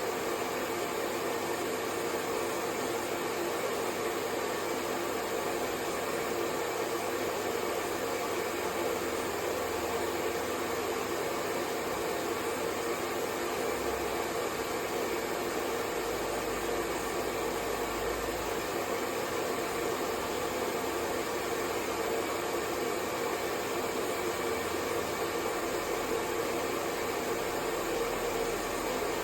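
Hair dryer blowing steadily, a constant whooshing fan-and-air noise with a faint steady hum and no change in level.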